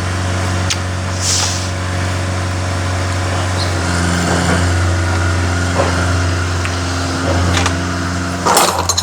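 A machine's motor running steadily with a low hum, with a few light clicks, a brief hiss early on and a clatter of metal knocks near the end.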